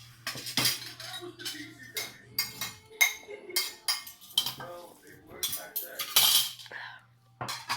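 Spoon and fork clinking and scraping on a plate during eating, an irregular run of sharp clicks.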